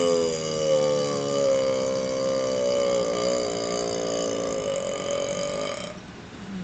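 A man's single long burp, brought up by gulped carbonated Pepsi: one low, pitched belch held for about six seconds, its pitch sagging slightly and wavering midway before it stops.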